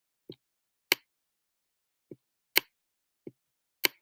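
A stylus pen tapping and clicking on a tablet while handwriting: six short clicks, three sharp ones about a second and a half apart, each coming shortly after a fainter tap.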